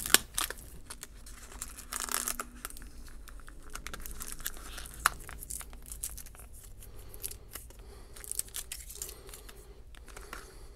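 Tape being peeled off a small plastic deli cup and its lid worked open, with plastic crinkling and scattered small clicks. The loudest rustle comes about two seconds in.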